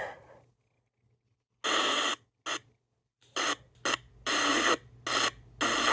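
Radio receiver hissing with static in short bursts that cut in and out as it is tuned toward a station, steadying near the end, after a brief knock at the start.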